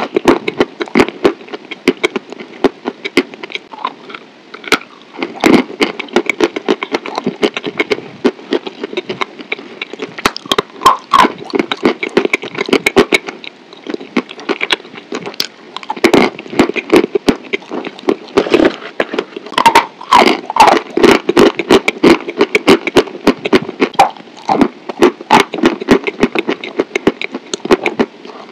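Close-miked chewing of crunchy food: dense, irregular runs of sharp cracks and crackles with wet mouth sounds between them.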